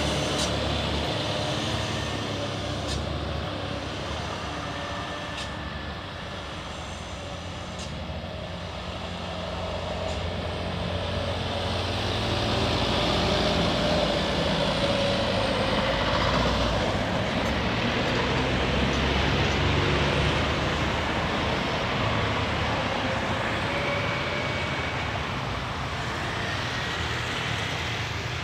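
Light diesel trucks and motorcycles driving past on a road bend, engine and tyre noise throughout. The sound dips a few seconds in, swells as a truck passes about halfway through, then eases near the end.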